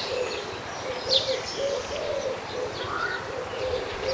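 Pigeon cooing in a steady run of repeated coos, with small birds chirping now and then.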